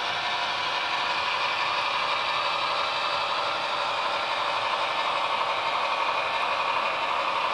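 Model freight train rolling past on layout track: a steady rattle of the cars' wheels over the rails.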